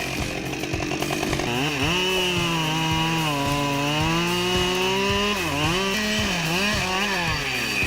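Gasoline chainsaw cutting wood, its engine note rising and falling as the saw loads up in the cut, with several quick dips in pitch in the last couple of seconds.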